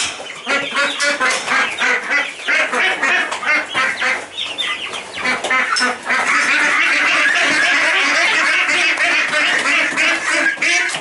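A flock of young khaki Campbell ducks quacking: many short, rapid calls at first, merging about six seconds in into a dense, continuous chorus of many birds calling at once.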